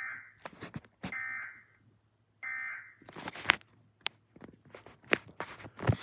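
Emergency Alert System digital-code data bursts from a TV's speaker: three short, buzzy, warbling bursts about a second apart. After them come irregular clicks, knocks and rustling from the recording phone being handled and moved.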